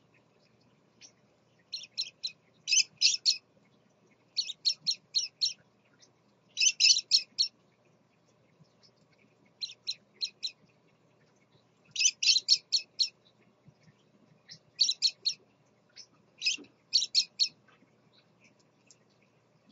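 Scarlet-chested parakeets chirping: quick runs of three to six short, high chirps, repeated every second or two with brief gaps between.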